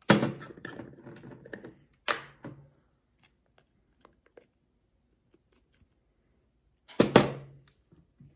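Clicks and clattering of a paprika spice jar being handled over a food-processor bowl, with faint ticks in the middle as the paprika is shaken out. The loudest clatter comes at the start, with another about seven seconds in.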